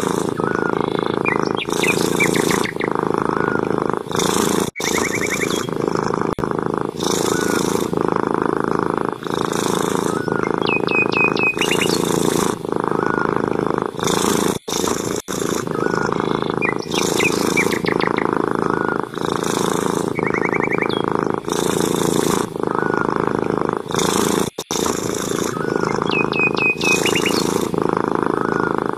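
Domestic cat purring loudly and steadily at close range, the purr swelling and easing with each breath about every couple of seconds.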